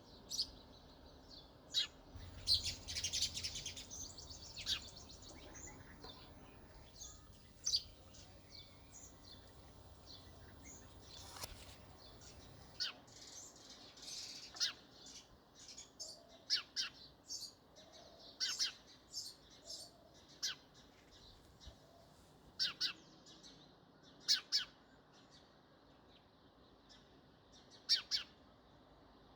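House sparrows chirping: short, sharp chirps at irregular intervals, with a quick flurry of them about two to four seconds in.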